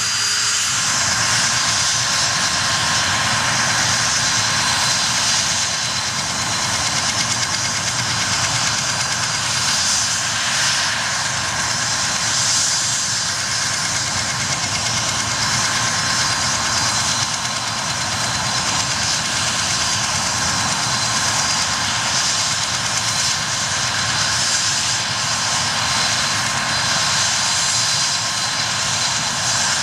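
Mil Mi-8 helicopter's twin turboshaft engines running on the ground with the rotors turning: a steady high turbine whine over a rushing rotor and exhaust noise.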